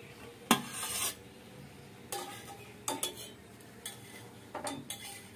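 A metal spatula scraping and clinking against a steel plate as a fried egg-coated paratha is slid onto it. There is a loud scrape about half a second in, then several shorter scrapes and clinks.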